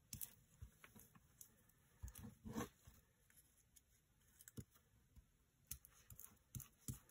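Near silence broken by faint paper-handling sounds: a few soft clicks and rubs as a glue stick is worked over a paper scrap on a playing card and the paper is pressed down by hand.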